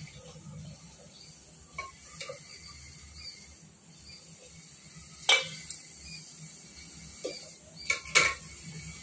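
Steel ladle clinking against an aluminium pot as tea is scooped up and poured back in. Several sharp metal clinks, the loudest about five seconds in and again near the end.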